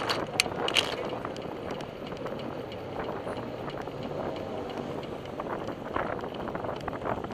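Wind rushing over the microphone of a camera on a moving bicycle, with car traffic running alongside on a city street. Three sharp clicks or rattles in the first second, and smaller ticks later.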